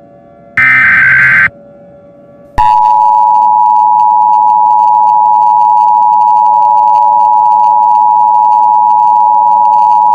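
Emergency Alert System tones: a harsh, screeching SAME header data burst of about a second, then after a short pause the EAS two-tone attention signal starts about two and a half seconds in and holds steady. These tones signal that an emergency alert message is about to follow.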